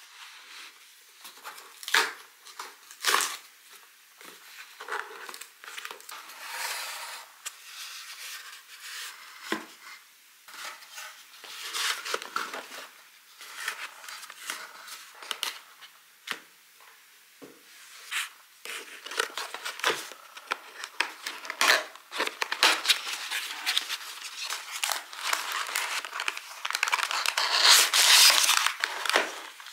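Hands unboxing a boxed leather belt: cardboard box parts tapping, scraping and sliding against each other, with tissue paper crinkling, denser and louder over the last several seconds.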